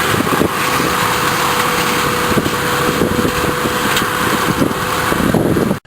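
Engine of machinery running steadily, with a faint steady whine; it cuts off abruptly at the very end.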